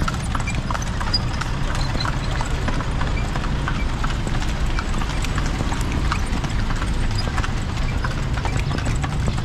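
Hooves of a horse pulling a kalesa (horse-drawn carriage) clip-clopping on the street in an even rhythm of a few strikes a second, over a steady low rumble.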